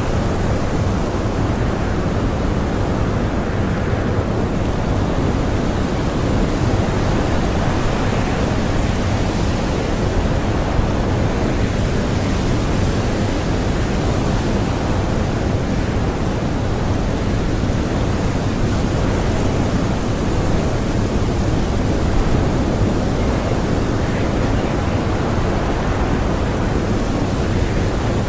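Blizzard wind blowing hard, a steady rushing noise that swells and eases slightly.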